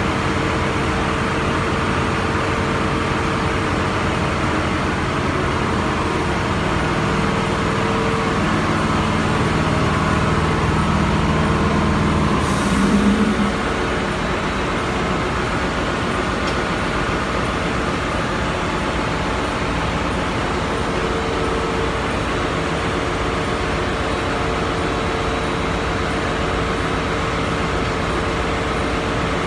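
Ship's engine-room machinery running with a loud, steady drone and a constant hum. A deeper drone joins about seven seconds in and stops after a short burst near the middle.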